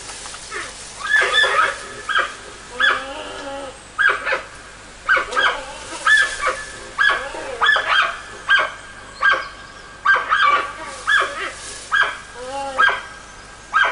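Male giant panda calling over and over in the mating season, courting a female that is rejecting him: short, rising-and-falling cries, about one or two a second.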